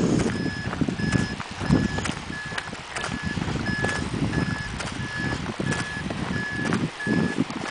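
An electronic alarm beeping steadily, a single high beep repeating about every two-thirds of a second, over irregular low rumbling and scattered clicks.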